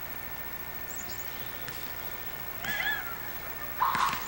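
Quiet outdoor background with a few short animal calls: high chirps about a second in and a brief bent call near three seconds, then a louder short sound near the end.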